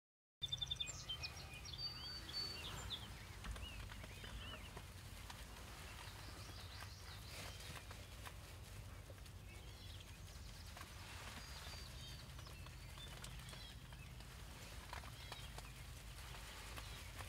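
Faint open-country ambience: small birds chirping, most in the first few seconds, over a low steady rumble.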